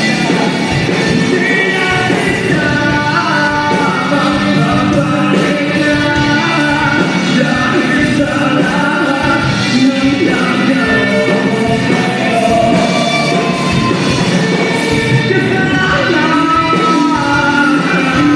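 Live band playing a loud rock song with a melody line over the full band.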